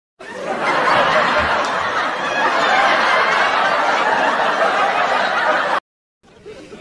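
Sitcom-style laugh track: a studio audience laughing together, starting a moment in, loud and steady, then cut off abruptly about a second before the end.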